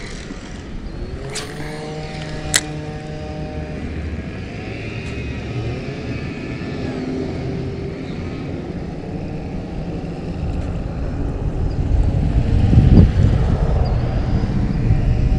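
The engine of a passing vehicle drones, its pitch slowly bending, under a low rumble that grows louder in the second half. Two sharp clicks come in the first few seconds.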